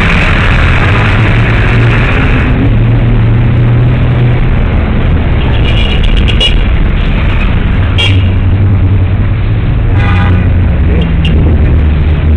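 Busy street traffic running close by: steady engine hum from passing cars, a motorcycle and a bus, with a brief car horn toot about ten seconds in.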